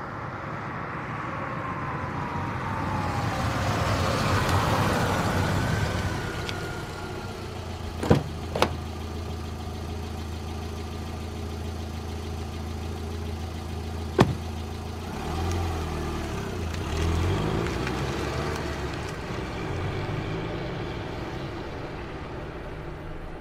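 Car engine running with a steady low hum. A few seconds in the sound swells and falls in pitch, then there are two sharp knocks about eight seconds in and another about fourteen seconds in.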